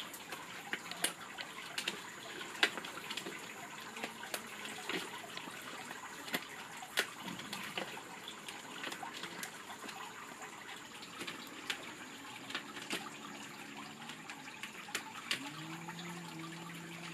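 Light clicks and crinkles of stiff plastic pinwheel sheets being handled and folded, over a steady background hiss. A low steady drone comes in near the end.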